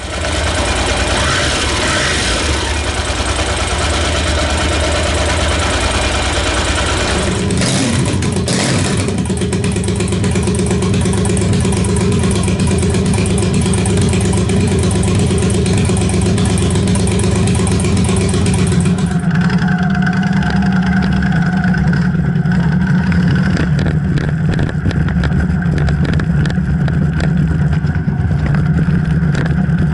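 Yamaha TDM 850 parallel-twin engine running through a short straight-through exhaust tip with no silencer or resonator, loud and unmuffled. The sound shifts abruptly twice, about a quarter of the way in and again past the middle, and after the second change it settles into a steadier, deeper run.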